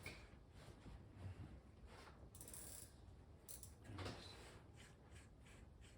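Socket ratchet clicking faintly and irregularly as the cylinder head nuts are run down.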